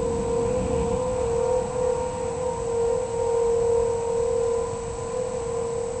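Outdoor tornado warning siren sounding a steady tone that holds one pitch, swelling a little in loudness toward the middle and easing off near the end, over a low rumble.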